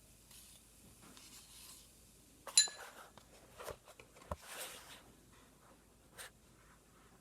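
Scattered light clicks and rustles of things being handled, with one sharp ringing clink, like a spoon striking a cup, about two and a half seconds in, and a brief soft hiss a couple of seconds later.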